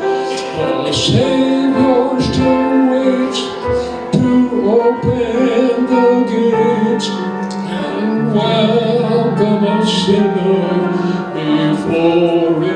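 A man and a woman singing a hymn into microphones, with keyboard accompaniment.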